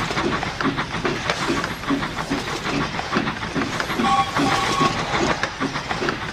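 Dubbed steam locomotive sound effect: a steady chuffing about three beats a second, with a short two-tone steam whistle about four seconds in.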